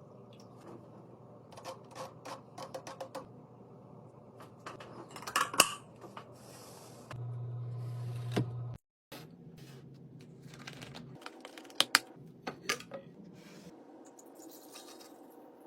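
Light clicks and knocks of food containers and lids being handled and set down, in scattered clusters, with a brief low hum for about a second midway.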